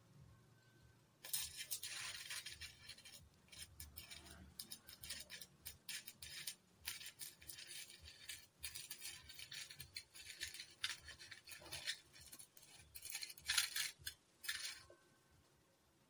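Stick (arc) welding on steel tubing: the electrode arc crackles and sizzles. It strikes about a second in, runs with several brief breaks, and stops near the end.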